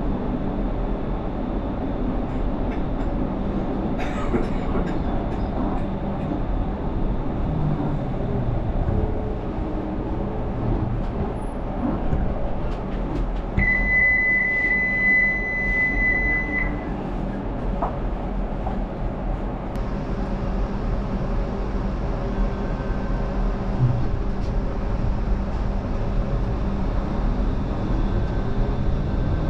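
Low-floor light-rail tram running, heard from inside its rear cab: steady rolling rumble with the motor whine rising and falling in pitch. A steady high beep sounds for about three seconds around the middle.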